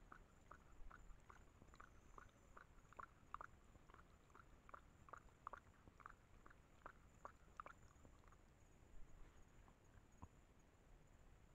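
Puma lapping water from a small pond: a faint, quick run of laps, a little over two a second, that stops about eight seconds in.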